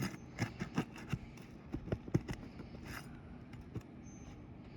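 Irregular scraping and sharp clicks of a hand tool working a roofing nail out from under brittle shingles, busiest in the first three seconds, then a few faint ticks.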